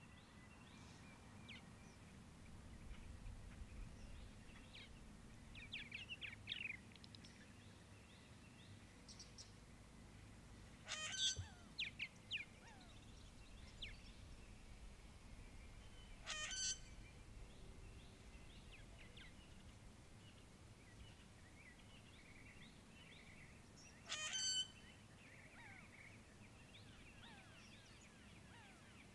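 Faint outdoor shoreline ambience made up of scattered bird chirps and twitters. Three louder, harsh bird calls come several seconds apart, over a faint low rumble.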